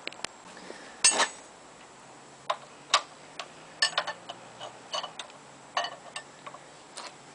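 Hand tools on the crankshaft pulley bolts of a Ford flathead V8: a scrape about a second in, then irregular sharp metallic clicks as a spanner and a ratchet are set on and worked.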